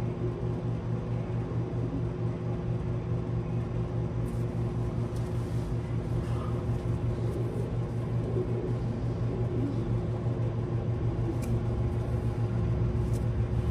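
Steady low machine hum with a slight regular flutter, like a running motor or fan, with a few faint clicks from about four seconds in.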